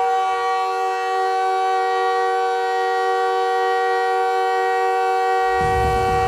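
Montreal Canadiens goal horn blowing one long, steady chord of several held tones. About five and a half seconds in, a bass beat of music comes in under it.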